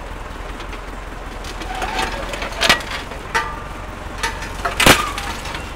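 Metal clanks and clicks from a tractor's three-point hitch linkage being worked by hand, a few sharp knocks with brief metallic ringing, the loudest about five seconds in.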